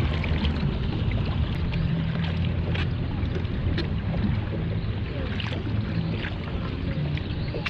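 Kayak out on open water: a steady wind rumble on the microphone with faint, scattered splashes and drips of water.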